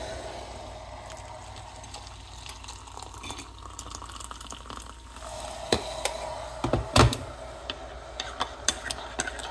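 Hot water poured into a ceramic mug of coffee and sugar, with a metal spoon standing in it. A few sharp clinks come about two-thirds of the way through.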